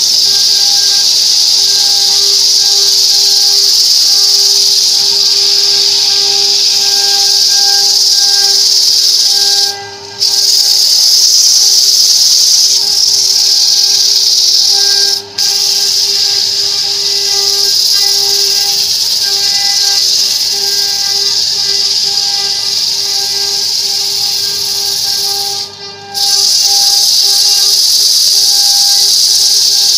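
A hand turning tool shaving a spinning wooden disc on a belt-driven wood lathe: a loud, steady hiss of cutting, with the lathe's steady hum underneath. The hiss breaks off briefly three times.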